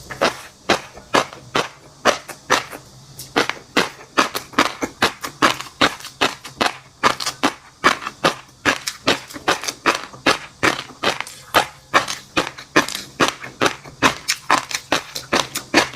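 Close-miked chewing of fish roe and crunchy seafood: a rapid, continuous run of crisp pops and crunches, about three or four a second.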